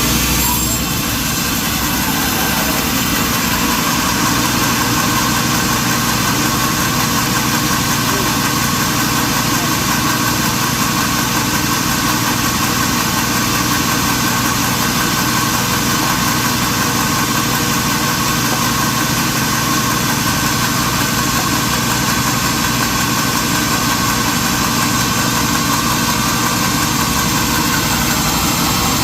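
Sawmill machinery running steadily: an even mechanical drone with a slight dip about a second in.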